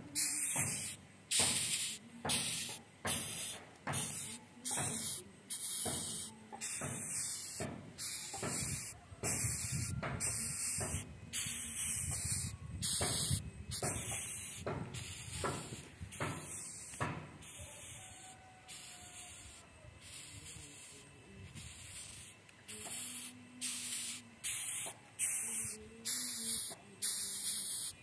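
Female horn (rhinoceros) beetle stridulating, rubbing its wings against its back: a series of short, sharp hisses, roughly two a second, with fewer for a few seconds about two-thirds of the way through.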